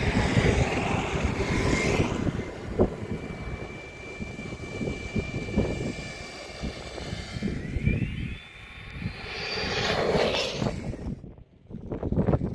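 Electric motor and gearbox whine of a Traxxas TRX-4 Bronco RC crawler driving over dirt and gravel, the pitch holding steady and then rising as the throttle opens, over the crunch and patter of its tyres on loose stones. A rushing swell comes about two-thirds of the way in, and near the end quick clicking knocks follow as it moves onto rocks.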